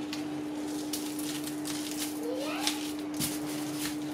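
Faint ticks and rustles of hands working a raw potato in olive oil and salt on parchment paper, over a steady low hum. A short rising squeak-like call comes about two and a half seconds in.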